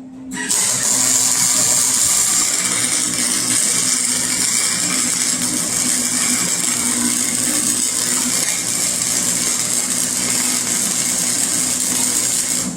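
Forney Easy Weld flux-core welder arc crackling steadily as it lays a bead sealing the gaps at an exhaust pipe-to-muffler joint, with a low steady hum underneath. The arc strikes just after the start and cuts off sharply near the end.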